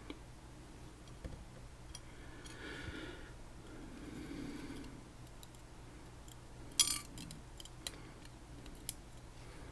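Small metal clicks and taps of lock parts being handled as a Tesa TK100 lock cylinder is taken apart for its pins and spool pins, with one sharper click about seven seconds in.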